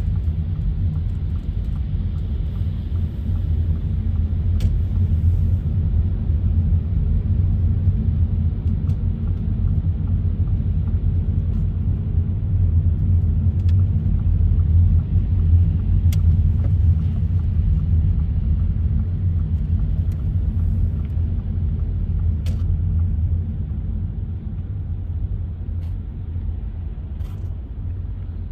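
A car driving: a steady low rumble of engine and tyres on the road, with a few faint clicks.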